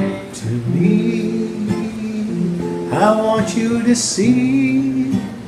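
A Christian song with acoustic guitar and a singing voice, the voice holding long notes.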